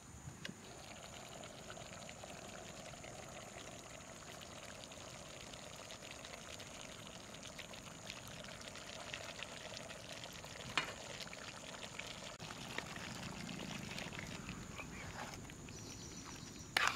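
Mutton curry simmering and sizzling in an aluminium pot over a wood fire, a steady bubbling hiss with scattered light clicks. A sharp knock about eleven seconds in and louder ones near the end, from the plastic ladle against the pot.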